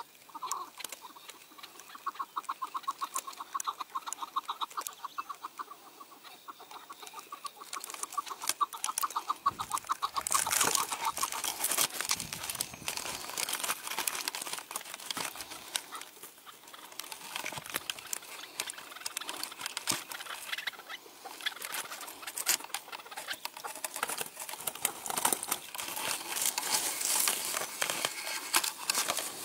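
Chukar partridge calling a long run of rapid clucking notes, then irregular scratchy rustling and crackling from about nine seconds in.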